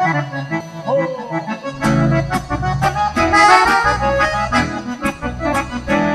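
Two piano accordions play the instrumental intro of a gaúcho-style song. About two seconds in the rest of the band comes in with a low bass line and a steady beat under them.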